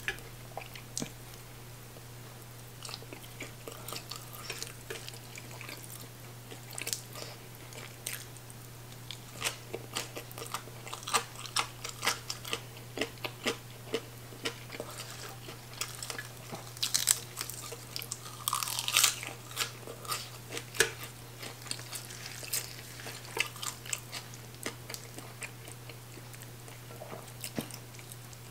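Close-up chewing and crunching of spicy green papaya salad and fried fermented fish, wet crackly mouth sounds coming in quick irregular bites, with one louder crunch about two-thirds of the way in. A steady low hum runs underneath.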